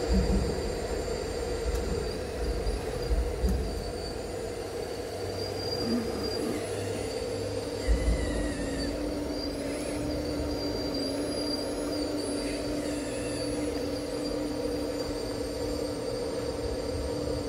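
Liebherr 954 RC model excavator working, its motors giving a steady whine of several tones, with a few low knocks from the bucket and earth: one near the start, some about three seconds in and a sharper one about eight seconds in.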